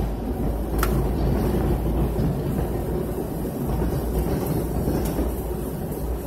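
Steady low drone of an airliner's engines and rushing air, heard from inside the cabin. One short click about a second in.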